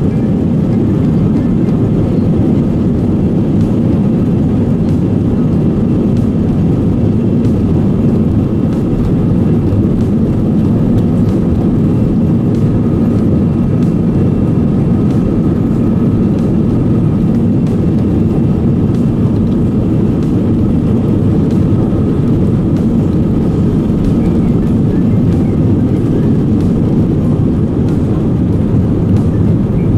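Steady rumble of an Airbus A320's jet engines and airflow heard inside the passenger cabin, with a faint steady whine above it.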